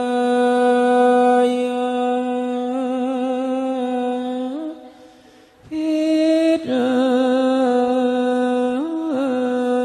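Thai royal barge chant (kap he ruea) sung by a single voice in long drawn-out held notes with wavering ornaments. It pauses briefly about five seconds in, then resumes a step higher before settling back down.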